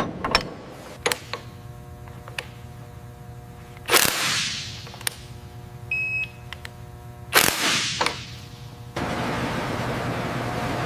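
Workshop assembly sounds: sharp metallic clicks and clanks, two loud bursts of hiss that die away, and a short beep over a steady machine hum. About nine seconds in, this switches suddenly to a steady rushing hangar noise.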